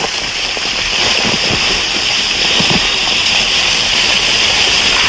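Rockslide coming down a forested slope onto a gravel road: a steady rushing hiss of falling rock and debris, building about a second in, with a few low thuds.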